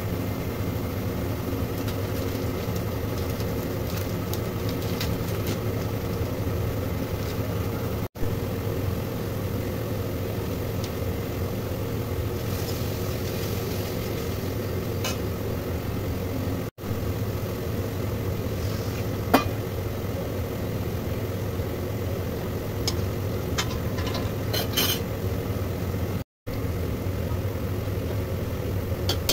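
A steady mechanical hum, like a running motor, with three brief dropouts. A metal spoon clinks against the steel kadai and bowl a few times in the second half.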